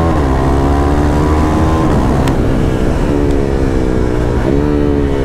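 De-catted KTM Duke 390 single-cylinder engine on its stock exhaust with no dB killer, very loud under hard acceleration. The revs climb and fall sharply several times as it is shifted through the gears, with a sharp crack about two seconds in.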